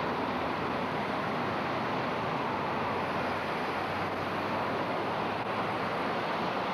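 Steady roar of highway traffic, tyres and engines of many vehicles blending together with no single vehicle standing out.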